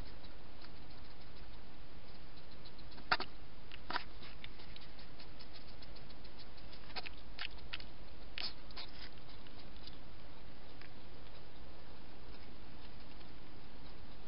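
A wild European hedgehog lapping water from a bowl: scattered small wet clicks, the two sharpest about three and four seconds in and a quick cluster a few seconds later, over a steady hiss.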